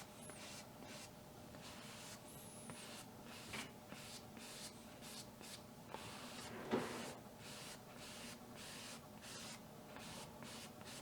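Paintbrush scrubbing acrylic paint onto canvas in short, quick back-and-forth strokes, faint and scratchy, with one brief knock a little past the middle.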